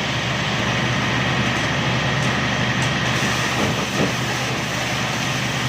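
FYX200 well-drilling rig (55 kW) running steadily, a loud even mechanical drone with a constant low hum.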